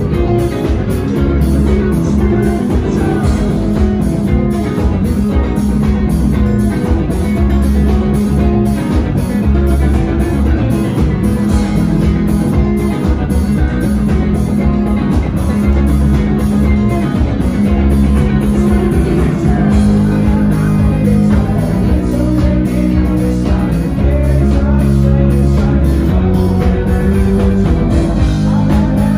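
Live rock band playing loud, with electric guitar, bass guitar and drums.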